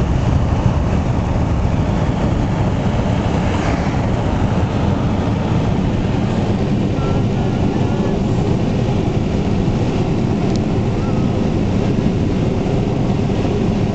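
Steady low rumble of road and engine noise inside a car's cabin while cruising on a motorway.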